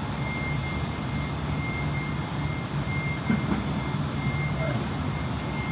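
Steady low mechanical hum with a thin high-pitched whine running through it.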